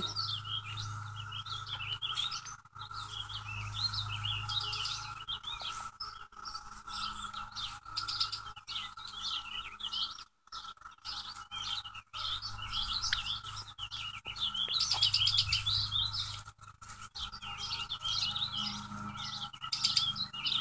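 A steady droning chorus of cicadas, with songbirds chirping repeatedly over it.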